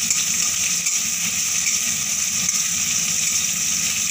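Sliced onions frying in hot oil in a kadai: a steady sizzle while they are stirred with a metal spatula.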